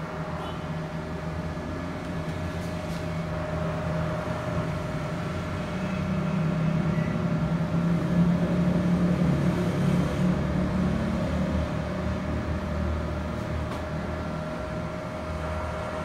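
Steady hum and airflow of a running Panasonic CS-PU9TKP split air conditioner indoor unit, with a constant whine over it; a deeper rumble swells up near the middle and dies back.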